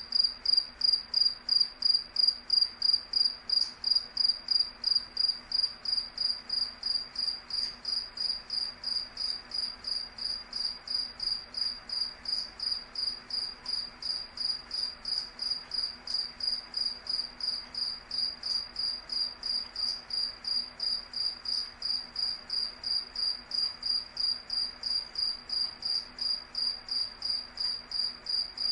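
A cricket chirping steadily: short high-pitched chirps, evenly spaced at about three a second.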